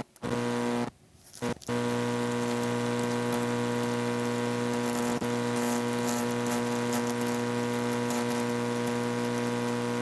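A steady buzzing hum made of several fixed tones, cutting out abruptly twice in the first two seconds and then holding unchanged: an audio fault on the recording.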